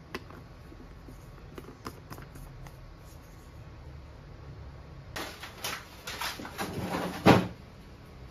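Light clicks of a glass jar and its wooden lid being handled, then a run of handling clatter that ends in one loud knock about seven seconds in.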